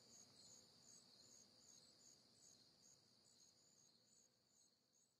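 Faint crickets chirping: a steady high trill with a pulsing chirp about twice a second, fading out to silence.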